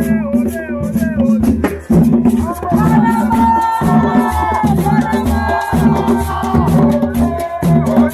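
Supporters' band in the stands: a large metal tube shaker rattling in rhythm over a steady drum beat, with trumpets playing and fans chanting along.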